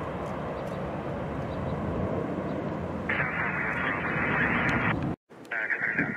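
Jet airliner climbing out after take-off: a steady broad engine roar, joined by a brighter, harsher band about three seconds in. The sound cuts off abruptly just after five seconds, and a new, higher, patchier sound begins a moment later.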